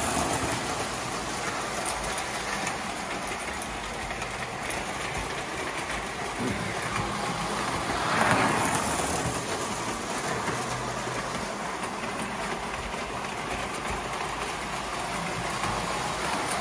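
Tinplate toy electric trains running on three-rail metal track: a steady whir and rattle of motors and wheels, swelling loudest about eight seconds in as a locomotive passes close.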